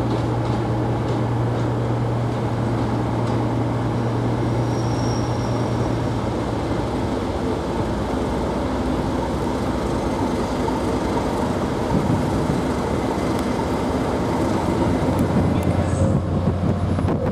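Diesel locomotives of a yellow engineering train passing slowly, with a steady low engine drone over the rolling noise of the train. The drone fades after about six seconds, and another engine note comes in near the end as the second locomotive passes.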